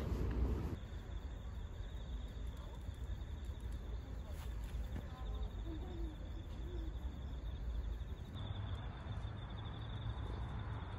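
Crickets chirping in a steady, high, finely pulsing trill, over a low rumble. In the first second, footsteps on a path.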